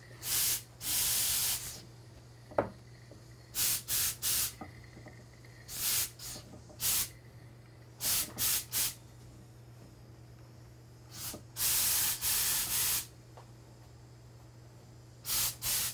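Handheld garment steamer puffing steam onto a finished mink coat in short hissing bursts, some single and some in quick runs of two or three, the longest lasting over a second, with pauses between. A steady low hum runs underneath, and there is one sharp click about two and a half seconds in.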